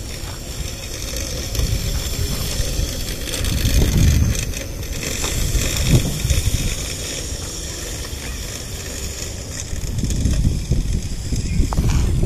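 Razor MX500 electric dirt bike riding on a dirt track, its electric motor and chain drive running with tyres on dirt, loudest about six seconds in as it passes close. Wind rumbles on the microphone throughout.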